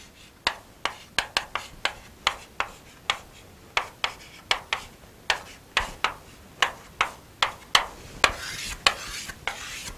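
Chalk writing on a chalkboard: a quick, uneven string of sharp taps and short scrapes, about two or three a second.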